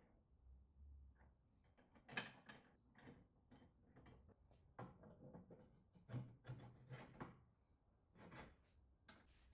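Faint, scattered knocks and clicks of metal lathe parts, the tool rests and tailstock, being fitted back onto the lathe. The sharpest knock comes about two seconds in, with a run of clunks a little past the middle.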